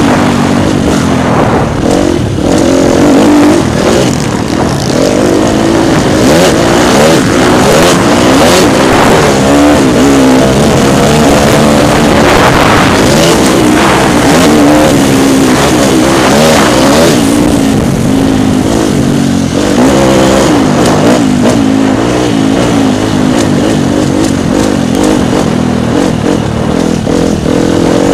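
Dirt bike engine heard up close from the onboard camera, revving up and down again and again as the rider works the throttle and shifts through the gears.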